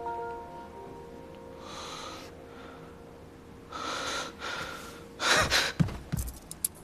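A person breathing hard in fear: two shorter breaths, then a louder, sharper gasp about five seconds in. A faint held music note fades out under it, and a few small clicks of movement follow near the end.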